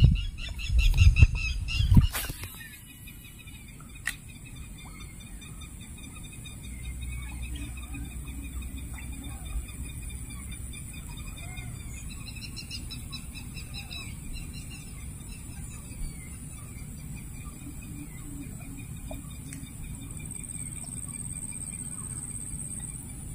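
Birds singing and calling in repeated warbling phrases, over a low rumble and a steady high-pitched buzz. A few loud bumps of the microphone being handled come in the first two seconds.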